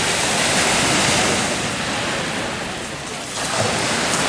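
Sea surf washing onto the shore: a steady rush of water noise that eases briefly about three seconds in and then swells again.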